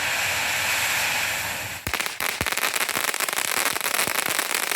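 Small cone fountain firework (TNT Sparkling Flower Pot) spraying with a steady hiss, then about two seconds in it turns to dense, rapid crackling, with a couple of pops at the change.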